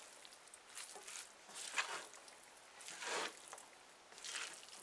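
A spatula tossing and mixing stir-fried noodles in a pan, making about four soft swishing scrapes a second or so apart.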